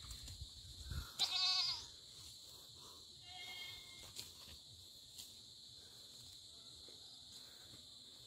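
Goat bleating: one wavering bleat about a second in and a fainter one about three seconds in, over a steady high-pitched hum.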